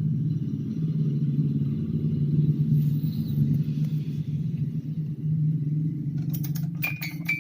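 Miniature sewing machine running with a steady low whir and rapid fine pulsing of the mechanism. About six seconds in, a string of sharp clicks and short high tones starts.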